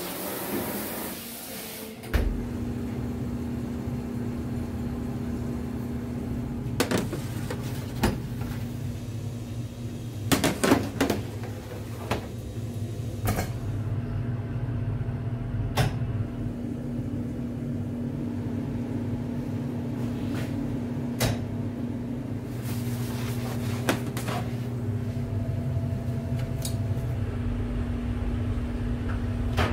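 An electric kitchen machine switches on about two seconds in and runs with a steady low hum, while short knocks and clatters, like utensils or containers being handled, come every few seconds.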